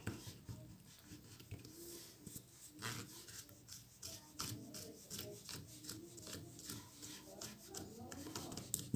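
Slime being kneaded and stretched by hand as lotion is worked in: many faint, quick clicks and small crackles throughout.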